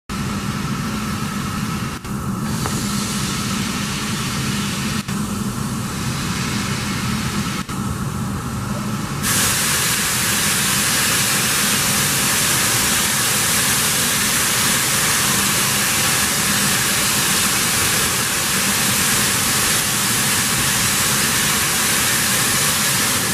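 LMS Stanier 8F steam locomotive standing at a platform, steam hissing steadily from it. About nine seconds in the hiss jumps louder and brighter and then holds steady.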